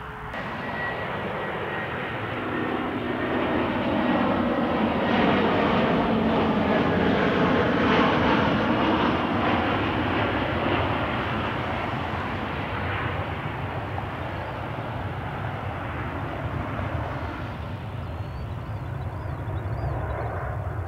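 Airbus A320-family airliner's jet engines passing low overhead on final approach. The noise swells to its loudest a few seconds in, the pitch slides down as it passes, and then it eases off as the jet descends toward the runway to land.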